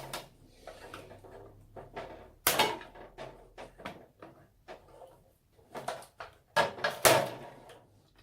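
Knocks, clicks and clatter of parts being pried and pulled out of an old CRT television's chassis during rough dismantling, with the loudest sharp knocks about two and a half seconds in and around seven seconds in.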